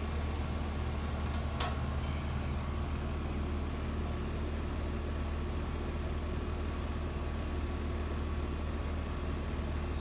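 Outdoor air-conditioning condensing unit running steadily: the R-410A compressor humming with the condenser fan turning, the compressor back on after cooling let its tripped internal thermal overload reset. A single short click about one and a half seconds in.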